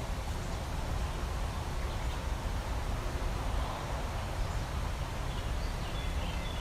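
Outdoor ambience: a steady low background noise, with a few faint bird chirps near the end.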